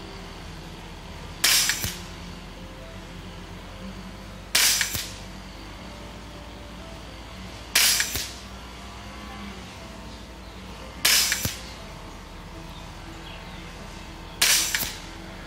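Kalibrgun Springbok .22 (5.5mm) PCP air rifle with a moderator firing five shots, about three seconds apart, each a sharp report with a short fading tail. The rifle is regulated down to 50 bar with the hammer spring backed off, for lower pellet speed.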